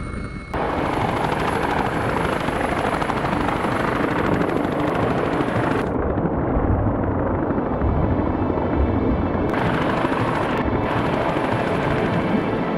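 Hovering helicopter's rotors and engines heard close up from below, a loud steady rush of rotor noise and downwash over the water. For about three seconds in the middle the sound goes muffled and dull as the camera is dunked under the water.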